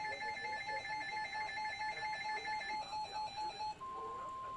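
Rapidly pulsing electronic alert tones from an emergency-alert receiver. A little under four seconds in they stop, and one steady single-pitch alert tone starts: the weather-radio warning tone that announces an incoming severe thunderstorm warning.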